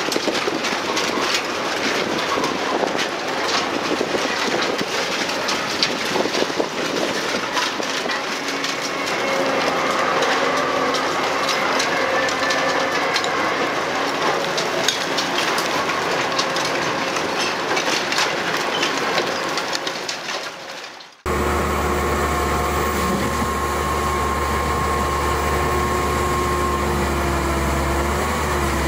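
Shredded scrap clattering and rattling as it pours off an industrial shredder's discharge conveyor: a dense run of clicks and knocks. About three-quarters of the way through it cuts abruptly to the steady, low drone of a tree-cutting forestry machine's engine running.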